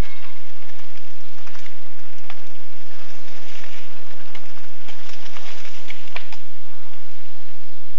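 Steady hiss with scattered short clicks and crackles as a mountain bike rolls down a dirt track and past; the clicks stop about six seconds in.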